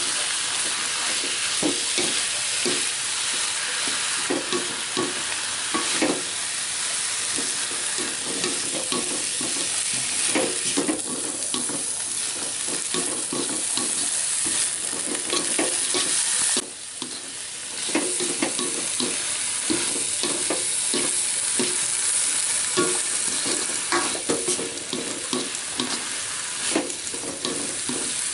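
Papaya leaves stir-frying in an aluminium wok: a steady sizzle, with a spatula scraping and clacking against the pan as the greens are turned. The sizzle drops away for about a second roughly two-thirds of the way through.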